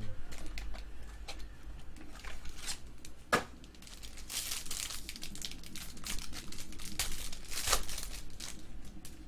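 Plastic card packaging crinkled and torn by hand, with scattered sharp clicks of cards and packaging being handled, one louder click about three seconds in.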